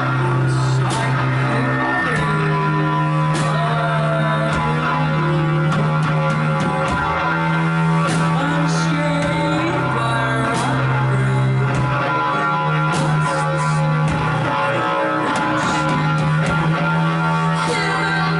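A live rock band playing, with electric guitar over a low bass note that switches between two pitches every couple of seconds.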